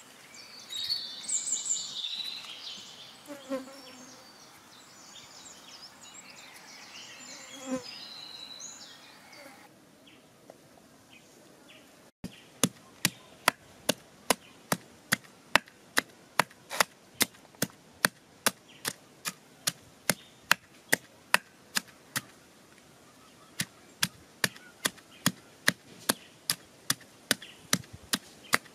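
Wooden pestle pounding chopped yellow root in a wooden mortar, a steady run of sharp knocks at roughly two and a half a second, with one short pause. The first few seconds hold a high buzzing and light knife work before the pounding starts about twelve seconds in.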